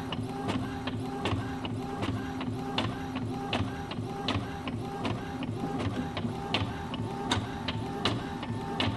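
Inkjet all-in-one printer printing a page: the print-head carriage shuttles back and forth with a steady motor whine and regular clicks, two or three a second, as the paper is fed out.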